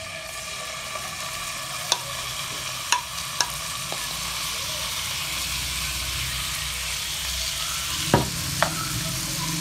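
Marinated chicken hearts sizzling steadily in hot ghee in a non-stick frying pan as they are tipped in and pushed around, with a few sharp clicks of utensils against the pan.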